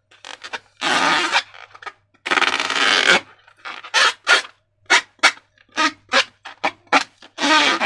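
Slime being squeezed and worked by hand: two longer squishing noises, then a run of about a dozen short, separate squelches.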